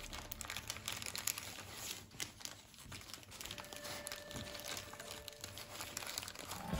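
Origami paper crinkling and crackling as it is pleated and pressed into place by hand, a quick irregular run of small crisp crackles.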